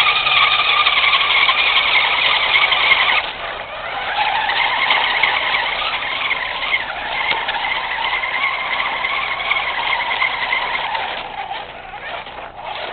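Tyco Rampage 9.6-volt radio-controlled truck's electric motor and gears whining as it drives. The whine cuts out briefly about three seconds in, then picks up again, and dips near the end.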